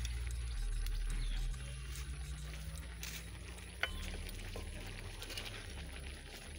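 Pot of beans boiling with a steady low bubbling hiss, under a low rumble. A metal ladle clicks faintly against the mortar a couple of times around three to four seconds in.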